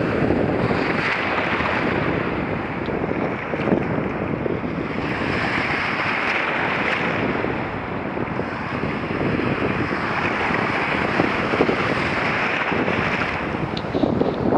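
Small surf waves breaking and washing with foam, heard right at the water surface, with wind noise on the microphone. The hiss of the water swells every few seconds as each wave passes.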